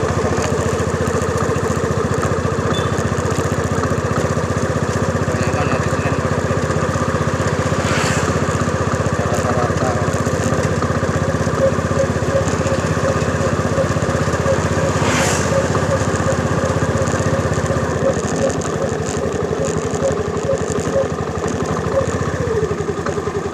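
Motorcycle engine running steadily while riding, picked up by a phone on a metal handlebar mount. The low engine note shifts about eighteen seconds in, and there are two brief swishes of noise.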